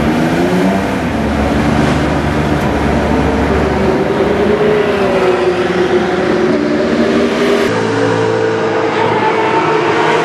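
Porsche 997 GT3 Cup race car's 3.6-litre flat-six engine running, its pitch drifting gently up and down. About eight seconds in, the sound cuts to race cars running on the circuit, with a steadier engine note.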